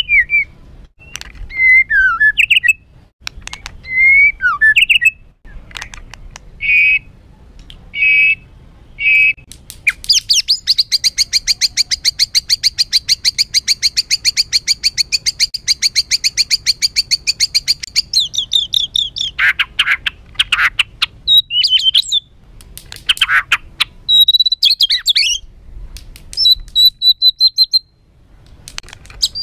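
White-rumped shama (murai batu) singing a harsh, aggressive song. It opens with loud whistled phrases, then runs into a fast rattling trill of repeated notes lasting about eight seconds, then goes back to varied whistles and sharp chips.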